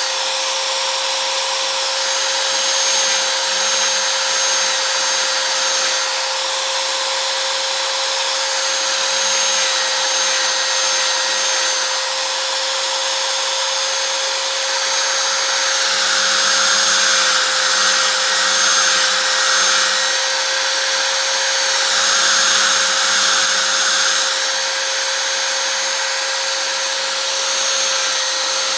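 Electric angle grinder with a sanding disc running at a steady speed, its motor whine constant throughout. Twice, in the second half, the grinding noise grows louder and rougher as the disc bites into a wooden strip being sanded to shape.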